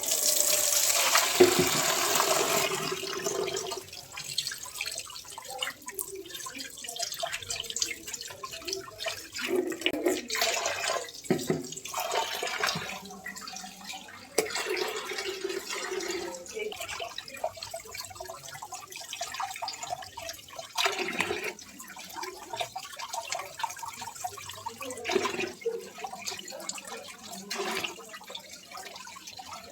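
Water running and splashing, loudest for the first few seconds, then uneven splashing and clattering.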